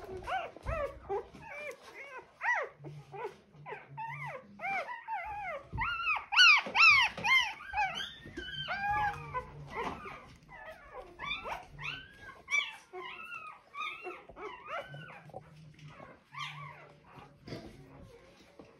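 Newborn German Shorthaired Pointer puppy crying in a run of short squeals that rise and fall in pitch, several a second, loudest about six to seven seconds in. It is distress crying while the puppy is handled for tail docking and dewclaw removal.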